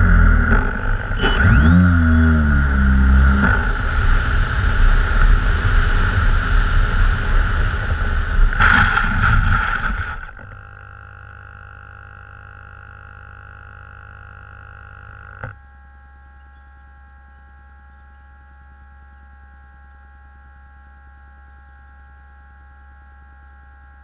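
Twin electric motors of a TwinStar model plane whining in flight, their pitch sliding with the throttle, then cutting off abruptly about ten seconds in as the plane comes down in grass. After that a faint steady electronic whine of several tones, which drops slightly after a click a few seconds later.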